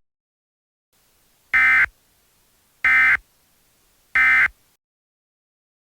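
Emergency Alert System end-of-message code: three short bursts of SAME digital data, each about a third of a second long and just over a second apart, sent to mark the end of the alert.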